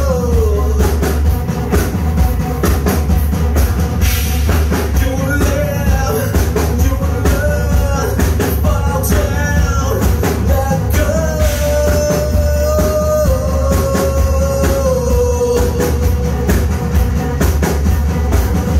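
Live rock band playing through a club PA: a male singer holding long sung notes over electric guitar, bass guitar and a busy drum kit.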